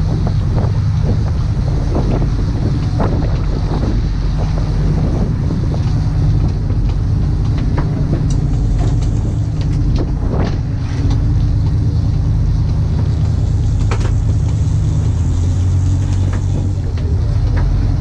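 Fishing boat's engines droning steadily under way, with wind buffeting the microphone. A few short knocks stand out over the drone.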